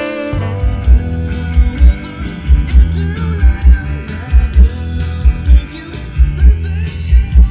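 Rock song with singing and guitar over a heavy bass kick drum hitting in pairs, played through a car audio system with door speakers and a 12-inch subwoofer.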